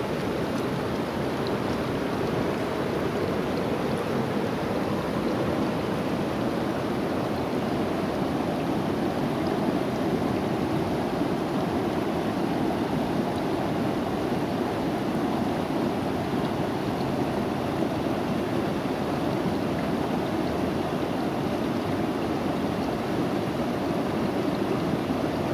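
Shallow rocky river flowing over stones and small rapids: a steady rush of water.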